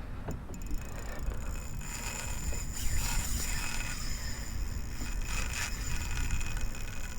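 Wind rumbling steadily on the microphone, with faint ticking from the fishing reel as a big threadfin salmon is played on rod and line.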